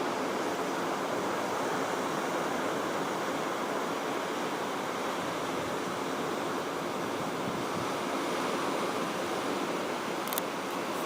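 Atlantic Ocean surf washing onto the beach, a steady rush of noise, with a few faint clicks near the end.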